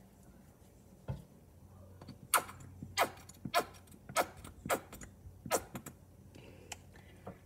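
A soft thump about a second in, then a run of about six sharp clicks, roughly two a second.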